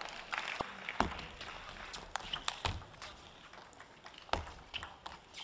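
Scattered light taps and about three dull thumps spaced a second and a half apart, over a faint hall hiss: players' footsteps and a table tennis ball tapping between points.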